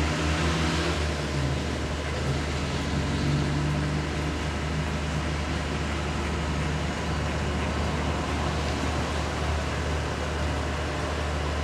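A steady low motor drone with a constant hum.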